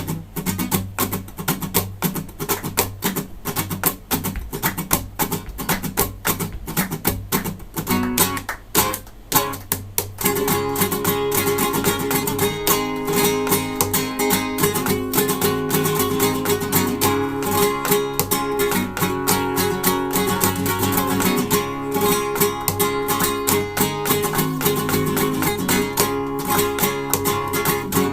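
Solo acoustic guitar playing a piece. It opens with sharp strummed chords separated by short pauses, then about ten seconds in moves into a continuous, fuller passage.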